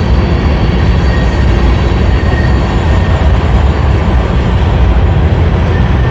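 A train passing close by: a loud, steady rumble of rail cars rolling along the track.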